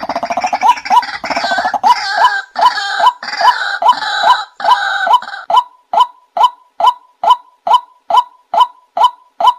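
White-breasted waterhen calling: a steady series of short 'wak' notes, about three a second. Over the first five seconds or so a harsher, raspier chorus sits on top, then stops, leaving the repeated notes alone.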